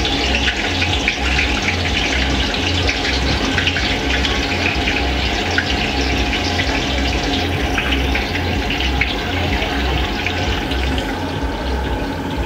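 Chicken deep-frying in a large steel kadai of hot oil, the oil bubbling and sizzling steadily with a constant crackle. A low throb repeats about twice a second underneath.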